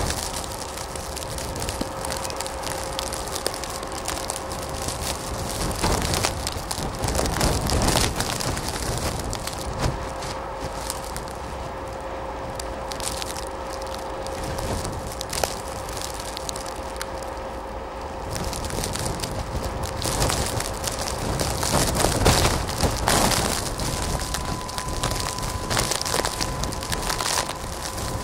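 Blizzard wind buffeting the microphone in loud gusts, over the running of a diesel locomotive crawling through deep snow. A faint steady tone hums underneath, and a second, higher one joins near the end.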